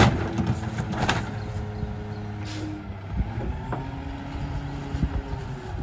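Rear-loader garbage truck's engine idling with a steady low hum while bulk junk is thrown into its hopper: a loud crash at the start and another about a second in, a short hiss of air about two and a half seconds in, and a few lighter knocks after.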